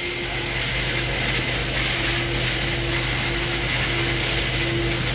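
Firefighting equipment's motor running steadily: a loud mechanical drone with a constant high whine, and a lower tone that cuts in and out in the second half.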